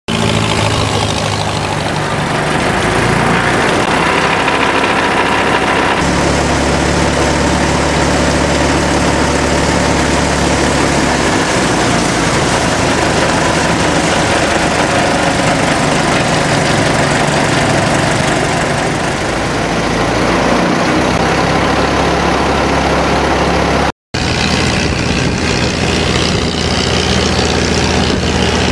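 A boat's engine running steadily and loudly under a dense hiss of water and wind, its pitch shifting a few times.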